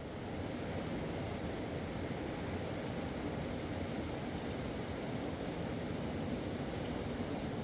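Steady rushing of a fast mountain river, a constant deep noise with no breaks.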